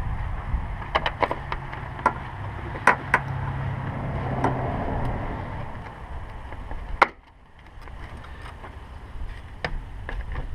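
A few sharp clicks and clinks from a socket driver and 8mm socket working the screws of a car's front turn signal assembly, the loudest about seven seconds in, over a steady low rumble.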